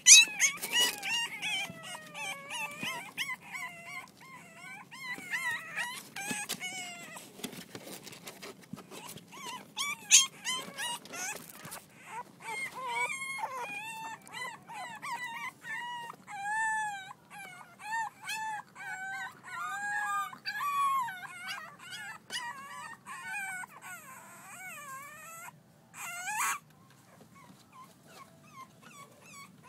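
Six-week-old French bulldog puppies whimpering and whining, a near-continuous string of short high cries that rise and fall in pitch, with occasional knocks.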